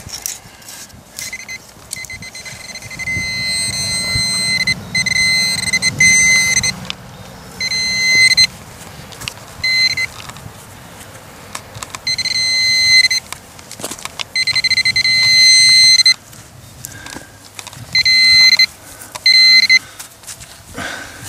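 Metal detecting pinpointer sounding a steady high-pitched buzz that switches on and off in stretches of one to several seconds as it is probed through loose dirt: the alert that it is close to a metal target. Short clicks and scrapes of soil and gloves come in between.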